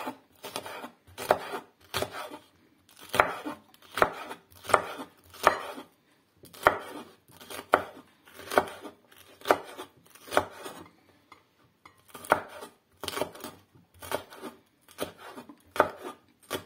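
Chef's knife chopping green and red peppers on a wooden cutting board: slow, even strokes, each one cutting through and striking the wood, about one a second, with a short pause about eleven seconds in.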